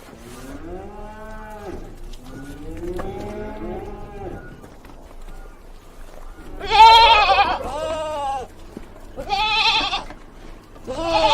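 Bleating livestock: two quieter, lower, wavering bleats, then three loud, higher, quavering bleats in the second half.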